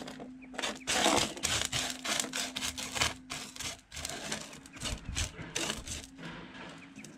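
Washed sapphire gravel rattling and scraping across a steel sorting table as hands push and spread it, in many quick uneven strokes.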